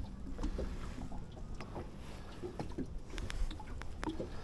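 Steady low rumble of water and wind around a small fishing boat drifting on a lake, with faint scattered clicks and taps.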